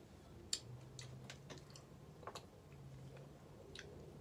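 Faint scattered clicks and ticks of eating and handling at the table, a handful of sharp ones with the loudest about half a second in, over a low steady hum.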